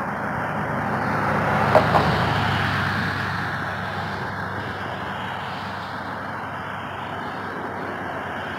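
Road traffic on a multi-lane avenue: a car or pickup passes close in the near lane, its tyre and engine noise swelling to a peak about two seconds in and then slowly fading, with two short knocks as it goes by.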